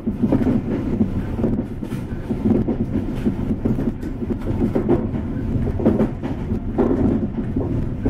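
Caledonian Sleeper train running at speed, heard from inside a carriage: a steady low rumble of wheels on rail, with occasional clicks over rail joints.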